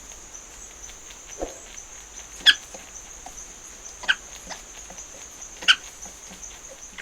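Badger squealing: three short, sharp, high squeals about a second and a half apart, with a weaker, lower call just before the first. A steady high hiss sits under the calls.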